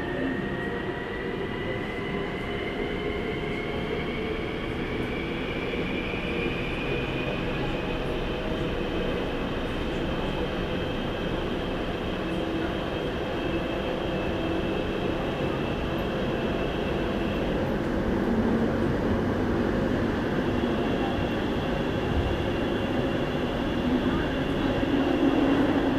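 Daegu Metro Line 1 electric train running, heard inside the car: a motor whine rises in pitch over the first several seconds and then holds steady over continuous wheel and track rumble. The whine drops out briefly about two-thirds of the way through and then returns.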